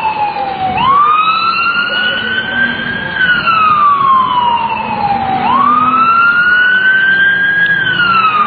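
Emergency vehicle siren in wail mode: a slow rising and falling tone, each sweep up and down taking about two seconds, going through nearly two full cycles.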